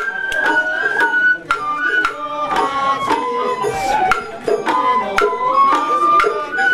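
Japanese festival hayashi music from the float: a bamboo flute plays a held melody that steps down and back up, over frequent sharp taiko drum strikes.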